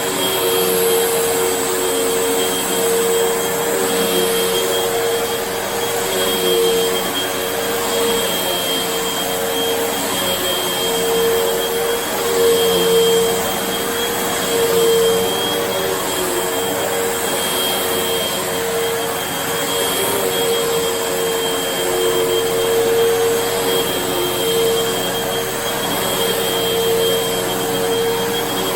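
Vacuum cleaner running steadily: a constant motor whine over a rush of air, swelling slightly in level now and then.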